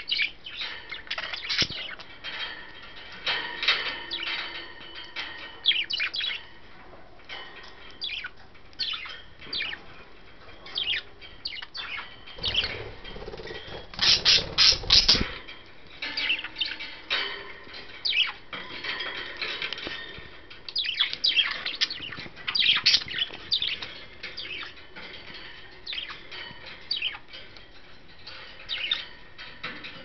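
Pet budgerigars chirping and chattering: a string of short, quick calls, with a louder burst about halfway through.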